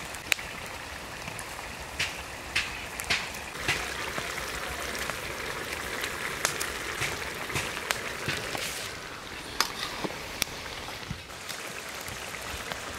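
A large karahi of thin curry simmering with a steady hiss and bubble as fried snakehead fish pieces are added, with scattered sharp clicks and taps throughout.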